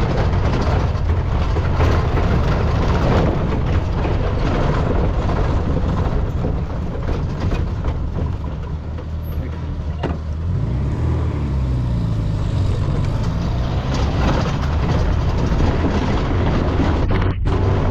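A motor vehicle's engine running steadily while driving, with a heavy low rumble and noise from wind and the road. The engine note shifts briefly about halfway through.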